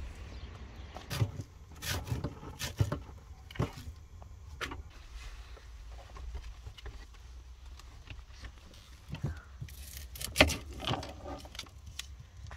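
Scattered clicks, knocks and clinks of kitchen things being handled, with a closer run of knocks about ten seconds in, over a low steady rumble.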